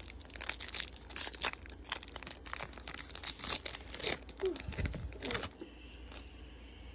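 A Pokémon Shining Fates booster pack's foil wrapper crinkling and tearing open by hand, in a run of quick crackles that dies down about five and a half seconds in.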